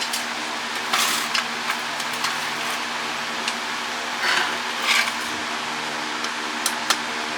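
Short scrapes and clicks of an electronics box's parts being handled and pried during disassembly, over a steady background hum.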